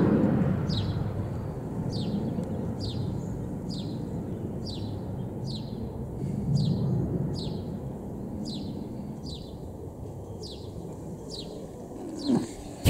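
The jet engines of a departing easyJet Airbus A319 make a low rumble that fades as the aircraft climbs away. A small bird repeats a short, high, falling chirp about three times every two seconds throughout. There are a couple of sharp knocks near the end.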